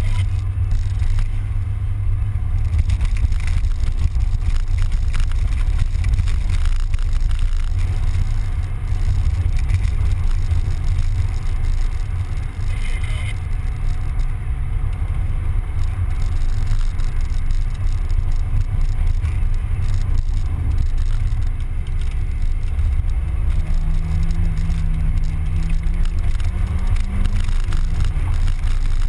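Mazda Miata under way: steady engine, road and wind noise dominated by a heavy, fluctuating low rumble. A faint pitched drone comes in and rises slightly near the end.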